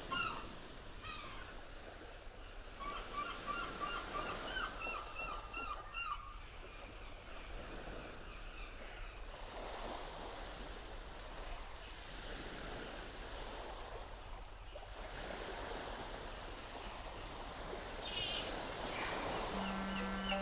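Small waves washing against a rocky lakeshore, with small birds chirping in short repeated runs now and then. A steady low tone comes in just before the end.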